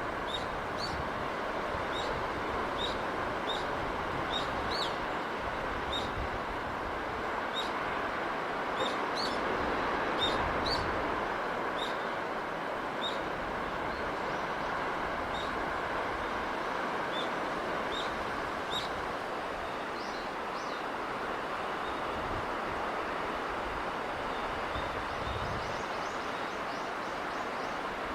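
Steady rushing wind-and-sea ambience, with a small bird giving short high chirps at frequent, irregular intervals over it; the chirps thin out near the end.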